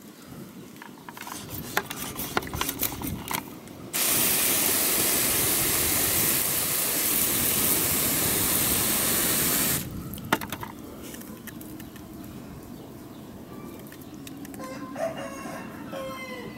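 Garden hose spray nozzle hissing steadily for about six seconds as a fine jet of water hits a sprouting chayote and its sawdust bed, after a few seconds of clicks and rustling from handling. A chicken calls in the background near the end.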